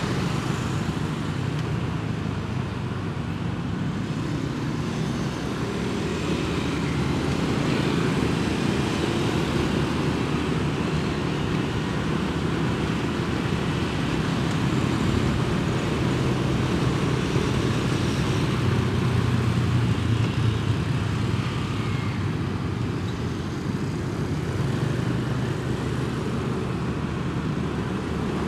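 Motorbike riding at cruising speed in road traffic: a steady engine drone under a continuous rumble of wind and tyre noise.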